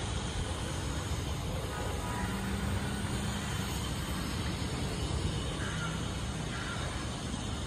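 Steady hum of distant city traffic, with no sharp sounds standing out.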